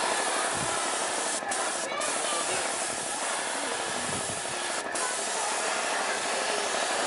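A steady hissing noise, briefly broken off a few times.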